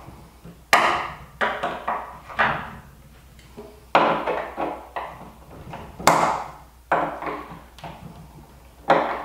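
Hammer blows on a wine barrel's steel hoop, about ten sharp strikes at an uneven pace, each with a short ring, knocking the hoop loose so it can be driven up off the staves.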